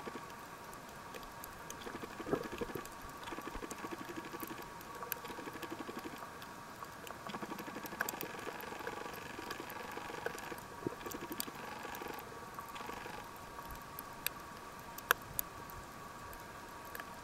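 Underwater sound over a shallow reef: a continuous crackle of many small clicks over a faint steady hum, with a few sharper clicks, the loudest about fifteen seconds in.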